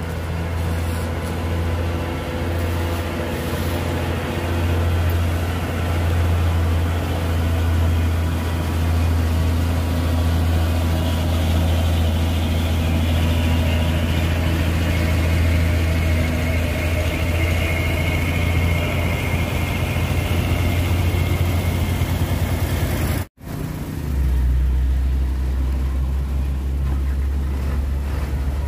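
Heavy diesel truck engines running at low revs close by, a deep steady hum. About three-quarters of the way through, the sound breaks off for an instant and comes back with a lower engine hum.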